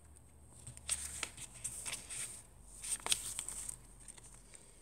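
Pages and inserts of a handmade paper junk journal being handled and turned: faint paper rustles and light taps, several short ones scattered through.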